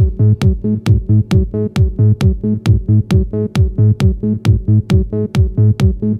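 Electronic dance music with a steady kick-drum beat, about two beats a second, sharp high percussion between the beats and a repeating synth bassline.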